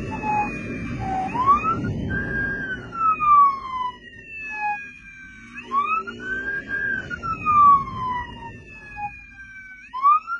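Police motorcycle siren wailing, each cycle rising quickly and then falling slowly, about every four to five seconds, over the noise of the moving motorcycle.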